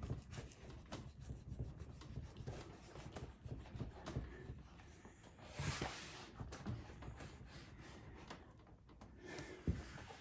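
Faint rubbing and scuffing of hands working damp seat leather onto a saddle, with a louder rub a little past the middle.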